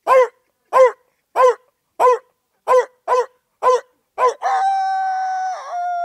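A young man imitating a dog through cupped hands: about eight short barks, roughly one and a half a second, each rising then falling in pitch. About four seconds in he breaks into a long, steady held note.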